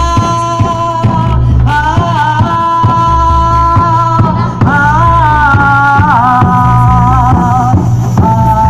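Live folk music: a woman's voice singing long, bending notes over large frame drums beaten in a steady rhythm, with a low sustained bed underneath.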